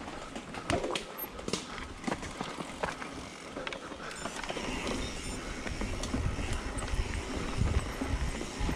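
Mountain bike rolling over a rough dirt track: scattered knocks and rattles from the bike, with low rumbling wind on the microphone growing in the second half.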